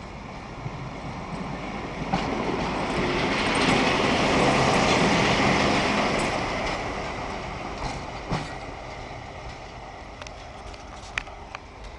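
RENFE Class 308 'Yeye' diesel locomotive rolling slowly past: its engine and wheels swell to a peak about halfway through as it goes by close, then fade as it moves away. A few sharp clicks come in the second half.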